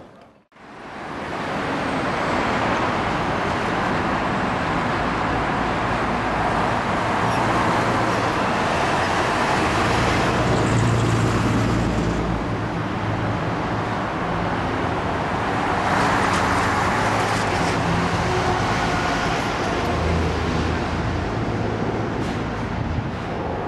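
Road traffic passing below: a steady wash of tyre and engine noise that swells as vehicles go by, around ten seconds in and again around sixteen seconds.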